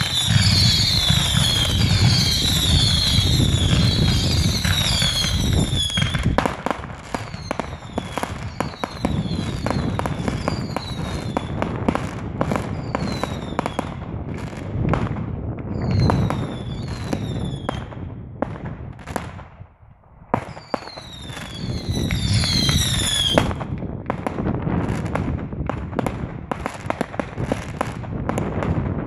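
A ground-fired fireworks barrage. Repeated falling whistles over a dense rumble give way to many sharp bangs and crackling bursts. After a brief lull just before twenty seconds in, the whistles and rapid crackling bangs return.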